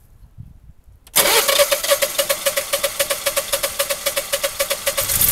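Electric starter cranking a Generac Guardian 17 kW generator's 992 cc V-twin engine from cold, starting about a second in: a loud, rapid pulsing with a steady whine that runs for about four seconds.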